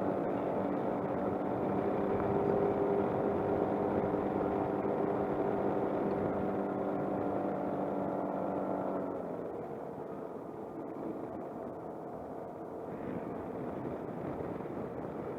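Suzuki Burgman 200 scooter's engine running steadily under way, with wind and road noise. About nine seconds in the engine's steady tone drops away and it gets quieter, leaving mostly wind and road noise.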